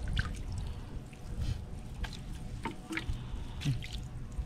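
Water trickling and splashing lightly, with scattered short knocks and clicks over a low rumble.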